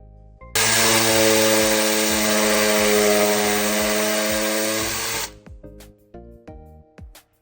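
Black & Decker cordless multi-tool's motor running steadily for about five seconds, then stopping, over quiet background music.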